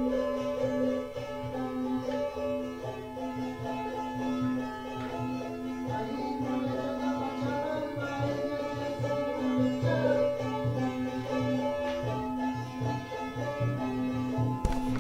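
Instrumental music: a steady held drone note with many ringing tones layered over it and a low pulsing beat. A sharp knock sounds just before the end.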